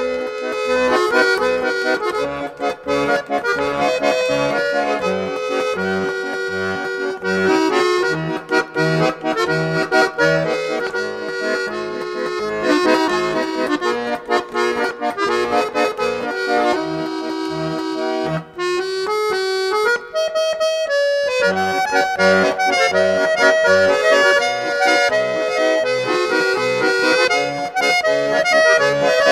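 Instrumental background music with a steady bass beat. The bass drops out for a couple of seconds about two-thirds of the way through.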